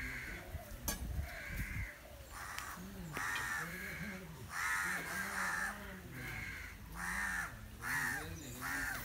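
Crows cawing over and over, about ten harsh calls of half a second each, some in quick pairs.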